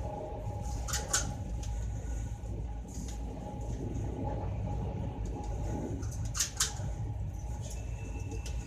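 Steady low rumble of a moving vehicle, with a faint steady hum and a few sharp clicks or rattles.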